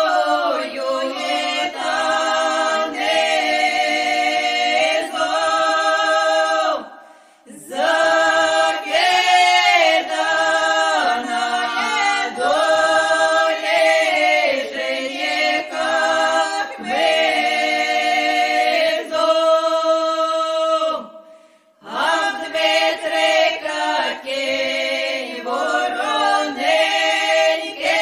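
A cappella choir singing a Ukrainian folk song, several voices together in long held notes, phrase after phrase, with two short breaks between phrases.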